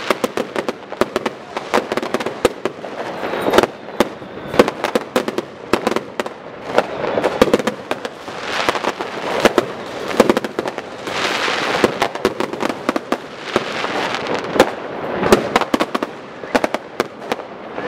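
Fireworks going off in quick, irregular succession: many sharp bangs and firecracker reports, with several stretches of about a second of dense hiss and crackle between them.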